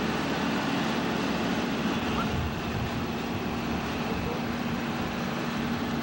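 Steady machinery hum under a constant wash of wind and sea noise, heard from a ship's deck.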